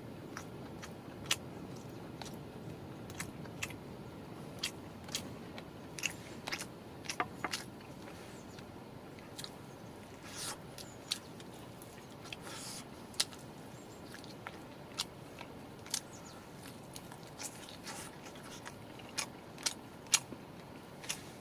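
Eating sounds: biting and chewing with crunches and scrapes, over a steady low background hum. Sharp clicks come at irregular moments throughout.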